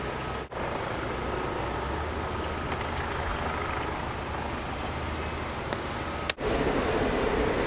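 Steady background roar from a nearby airfield, an even rushing noise of aircraft engines with no clear rhythm. It drops out briefly twice.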